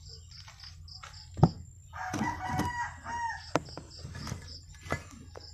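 A rooster crowing once, a call of about a second and a half starting about two seconds in, over a steady, rapidly pulsing insect chirp. Several sharp knocks, the loudest about one and a half seconds in.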